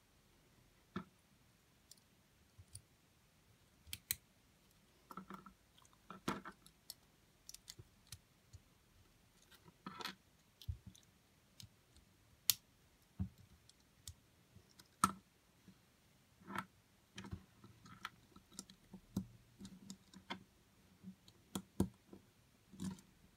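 Plastic Lego pieces clicking as they are handled and snapped together by hand: faint, irregular sharp clicks, sometimes in quick little clusters.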